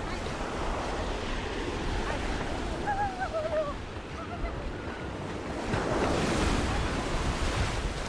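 Small waves breaking and washing up on a sandy beach: steady surf, with one wave surging in louder about six seconds in.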